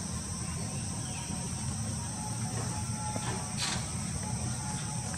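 Steady high-pitched insect chorus over a low rumble, with a short rustle about three and a half seconds in.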